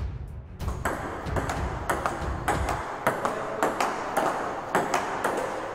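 Table tennis rally: a celluloid ball clicking off the paddles and bouncing on the table, about three sharp pings a second.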